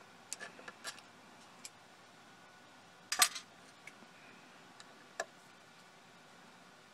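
Small metallic clicks and taps of a screwdriver being handled against the screws and metal heat-sink plate of a show laser: a few light clicks in the first second, a louder clatter about three seconds in, and one more click about five seconds in.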